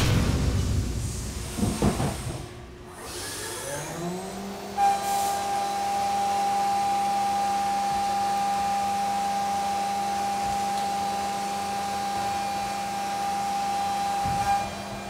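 An edited sound-effect hit, then a CNC milling machine's spindle spins up, rising in pitch, and a Kennametal Stellram 3-inch shell mill cuts aluminum at 200 inches per minute. The cut is a steady, loud machining whine, with one strong high tone over lower steady hum, that stops near the end.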